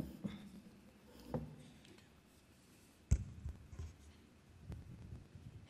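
Quiet room tone with a few faint knocks and one sharp thump about three seconds in, followed by soft low rumbling.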